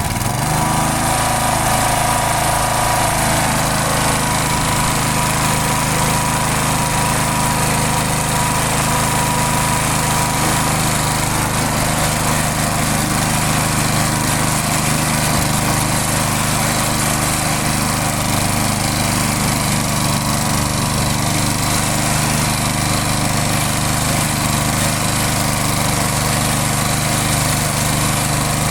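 Briggs & Stratton engine on a walk-behind push lawn mower, opened up from high idle to full throttle right at the start and then running steadily. The whole machine rattles badly over the engine's even note.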